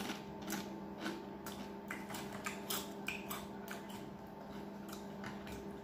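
Close-up eating sounds: irregular wet clicks and smacks of chewing, several a second, as a man eats chapati with curry by hand, over a steady low hum.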